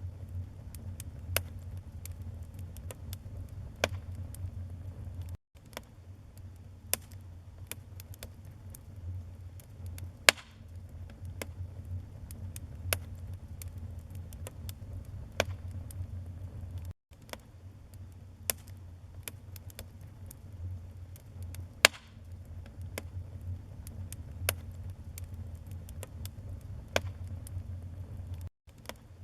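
Wood fire in a fireplace crackling, with irregular sharp pops, a few of them loud, over a low steady rumble. The sound cuts out for an instant three times, evenly spaced.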